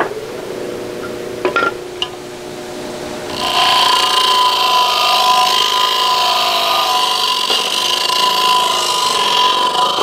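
Power-tool wire brush running, then biting into the feeder's soft aluminium base about three and a half seconds in: a loud, steady scouring rasp that strips off the dirt and corrosion.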